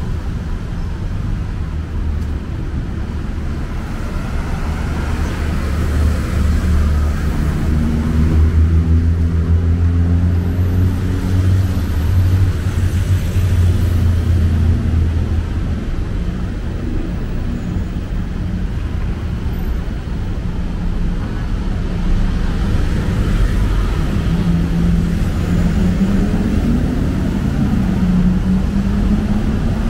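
City road traffic: vehicle engines running and passing, with a deep engine drone through the middle and engine notes rising as vehicles pull away, again near the end.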